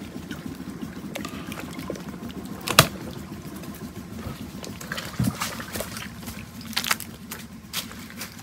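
Water sloshing and trickling, with scattered sharp clicks and knocks; the loudest is a sharp crack about three seconds in, and a dull thump follows a couple of seconds later.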